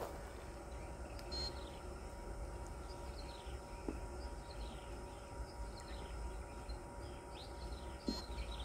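Faint ambience: a low steady rumble with scattered short, high chirps from a small bird, each note dropping in pitch.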